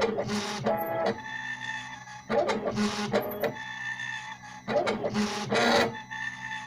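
Stepper motors of a homemade CNC machine running, their steady whines shifting pitch every second or two as the axes move. Three bursts of rasping noise, each about a second long, come between the whines.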